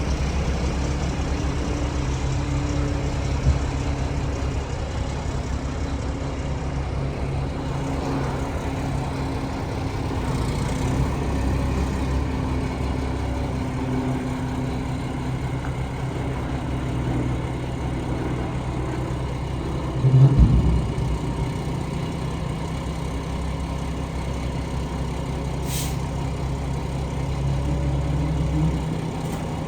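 Heavy engine running steadily, with a loud knock about twenty seconds in and a brief hiss near the end.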